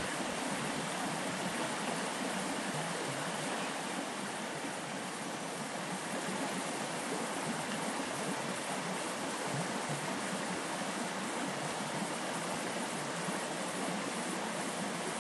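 Shallow stream running over rocks: steady running water.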